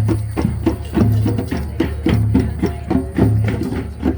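Music with a steady percussive beat: quick struck strokes several times a second over a deep low note that comes back about once a second.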